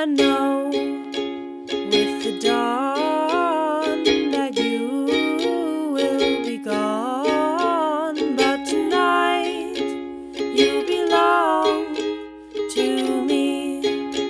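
Background music: a light plucked-string tune with a melody line that slides up and down in pitch over a steady accompaniment.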